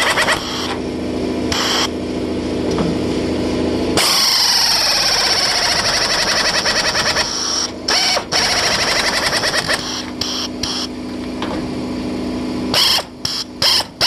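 Pneumatic sheet-metal cutter running as it cuts through the steel of a truck's rusted quarter panel, in long runs with brief stops, then several quick start-and-stop bursts near the end.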